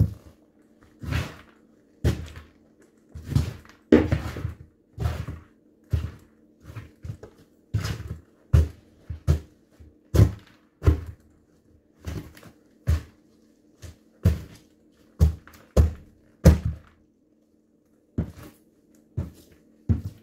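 Black high-heeled ankle boots stomping on smashed pumpkin pieces on a wooden floor: a run of heavy thuds, one or two a second, with a brief pause near the end.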